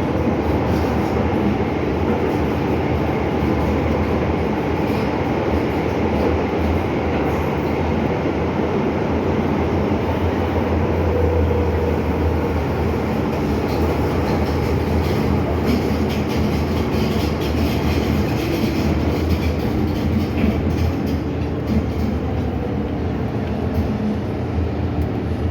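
MTR Island Line M-Train electric multiple unit running between stations in the tunnel, heard from inside the car: a steady rumble of wheels on rail and running gear.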